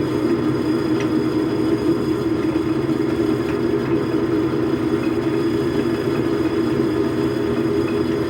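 Logan metal lathe running steadily, its motor and drive giving a continuous even hum.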